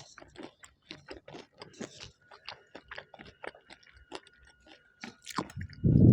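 Close-miked chewing of food, wet mouth clicks at about three to four a second. A faint steady high tone comes in about two seconds in, and a loud low thud sounds near the end.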